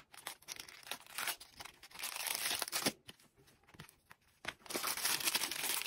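Crinkling and rustling of clear plastic packaging handled by hand, in two stretches: a short one about two seconds in and a louder, longer one from near the five-second mark, with a few light ticks at the start.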